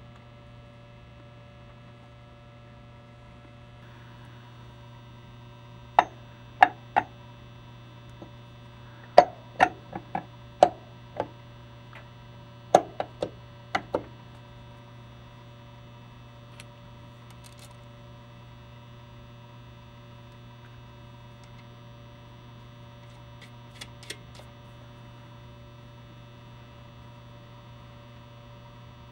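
About a dozen sharp metal clicks and knocks, starting about six seconds in and ending about halfway through, then two faint ticks later on, as the moped engine's magneto flywheel is handled and fitted over the stator. A steady low electrical hum runs underneath.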